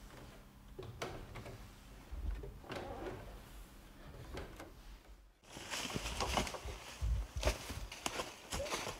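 Faint scattered knocks and rustles, then from about five and a half seconds in, louder irregular footsteps tramping through forest undergrowth.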